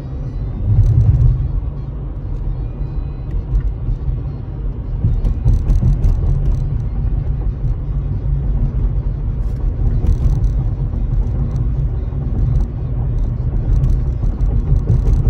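Car road noise heard from inside the cabin while driving: a steady low rumble of engine and tyres on a damp road.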